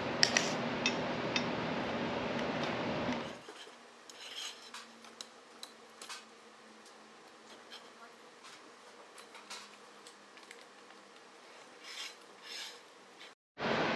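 Roof-rack load bars being slid and nudged through their loose clamps: light scraping with scattered small clicks and knocks. A steady background hiss drops away after about three seconds.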